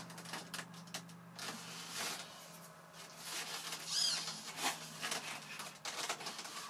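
Hands handling and pressing the foam airframe of an RC model jet: scattered small clicks, scuffs and rubbing, with a brief high squeak about four seconds in.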